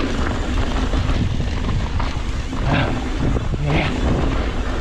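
Wind buffeting the microphone and mountain bike tyres rolling over a dirt trail on a descent: a loud, steady rumble, with two short louder bursts a little past the middle.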